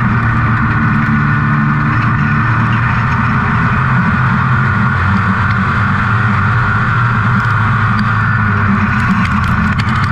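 Dirt-track super truck's engine running hard at racing speed, heard from inside the cab: a loud steady drone whose pitch shifts a little as the throttle changes.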